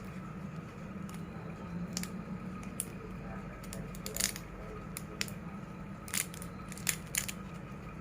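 Short clicks and light knocks of kitchen handling, scattered irregularly over a steady low hum.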